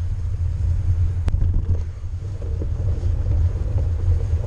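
Steady low rumble of a mountain bike being ridden along a snow-covered trail, heard through a GoPro: wind buffeting the microphone and tyre and frame noise. One sharp click comes a little over a second in.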